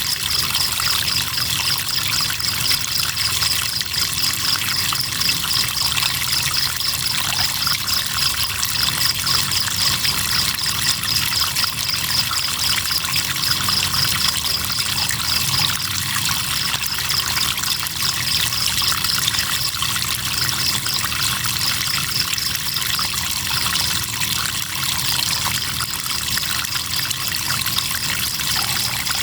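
River water trickling and flowing steadily, with crickets chirping in a fast, high, pulsing trill that thins out for a while in the middle.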